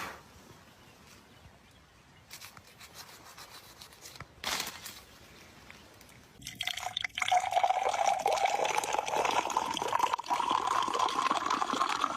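Liquid poured into a container, starting about halfway through, with a tone that rises steadily as the container fills. Before it, faint rustling and one short burst of noise.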